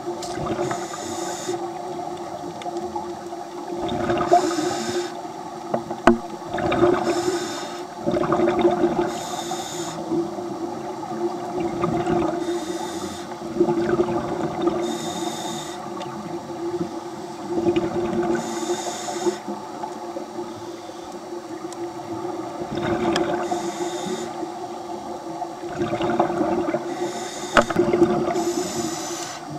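Heard underwater: a scuba diver breathing through a regulator. A hiss rises every two to four seconds on each inhalation, with bubbling rushes on the exhalations, over a steady low hum.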